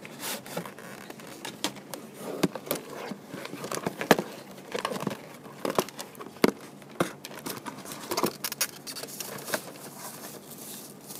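Hands handling a cardboard tablet box as it is opened: irregular taps, scrapes and rustles of the box and a thin foam packing sheet, with a sharper knock about four seconds in.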